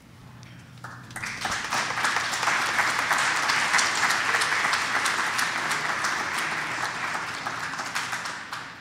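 Audience applauding, starting about a second in, swelling, and tapering off near the end.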